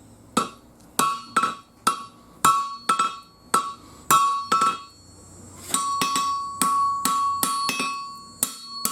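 Blacksmith's hand hammer striking hot 5160 steel on an anvil, each blow ringing out. Steady blows about two a second, a short pause about five seconds in, then quicker blows with the ring carrying between them. By the smith's own account the steel is short of forging heat.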